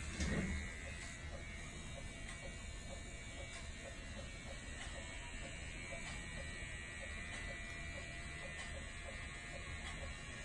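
Steady electric buzz of a small handheld cosmetic device's motor, from a microneedling pen or a vibrating gold T-bar facial massager. A brief louder low sound comes just after the start.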